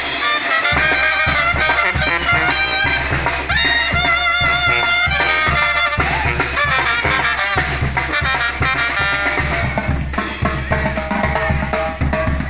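Live Mexican banda (tambora) music: trumpets and clarinets playing a melody over a sousaphone bass line, with snare drums and a tambora bass drum with cymbal keeping a steady beat.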